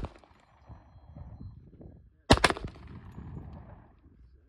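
Two gunshots in quick succession about two seconds in, each with a short echoing tail. The tail of another shot sounds right at the start.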